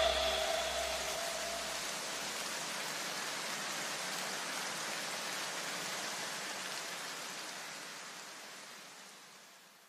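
A wide, even hiss of white noise fading out slowly over about nine seconds, with a low rumble dying away in the first two or three seconds.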